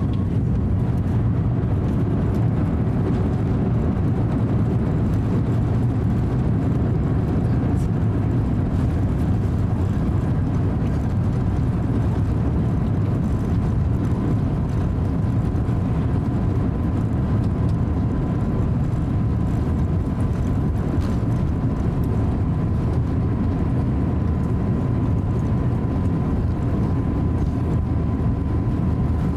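Cabin noise inside an Airbus A350-900 rolling out and taxiing after landing: a steady low rumble, with a faint steady whine coming in about halfway through.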